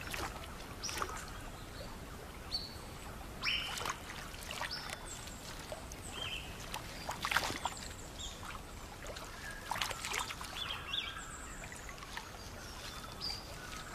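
Several short splashes of water as an eel net is lifted out of a river, over a steady stream hiss, with scattered short high chirps.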